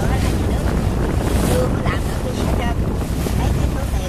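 A boat's engine running steadily, heard under heavy wind noise on the microphone.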